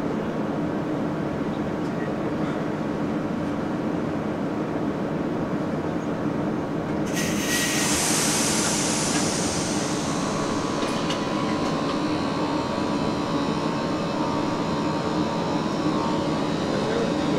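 Inside a modernised SNCB AM80 electric multiple unit as it leaves a station: a steady hum of onboard equipment, then about seven seconds in a sudden hiss of air that fades over a few seconds. A steady whine from the traction equipment follows as the train starts to pull away.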